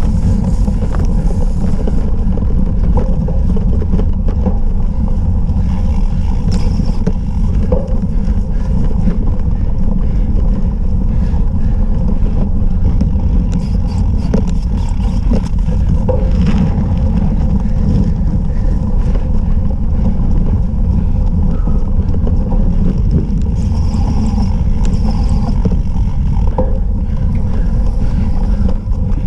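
Steady low rumble of wind buffeting and ground vibration on a cyclocross rider's action camera as the bike rolls over bumpy grass and mud, with a few faint clicks and rattles.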